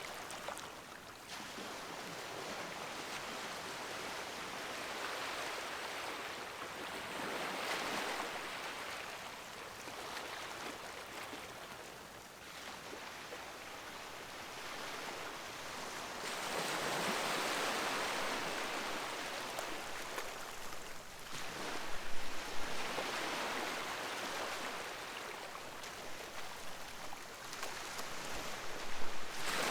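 Sea waves breaking and washing on the shore, swelling and fading in several slow surges, the biggest about halfway through.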